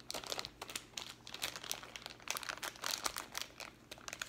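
A thin clear plastic packet crinkling and crackling irregularly as fingers twist and pull at it, trying to tear it open by hand.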